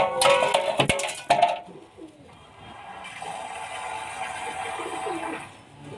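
Domestic giribaz pigeons cooing in a wire loft, a short curving coo coming near the end. For the first second and a half a steady musical tone with a few sharp clicks plays over them, and after that a steady whir.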